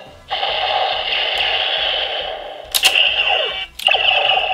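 Neo Decadriver toy belt playing an electronic sound effect through its small speaker, a steady buzzing tone that stops about two seconds in. Two sharp plastic clicks follow as the belt's side handles are pulled and the buckle core turns, then the belt's electronic sound starts again.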